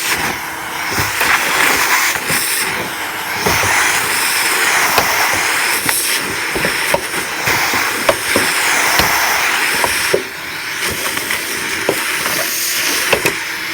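Gutter-cleaning vacuum running with a loud, steady rushing hiss, overlaid with irregular sharp clicks and knocks of debris being drawn through the hose; the suction noise dips briefly about ten seconds in.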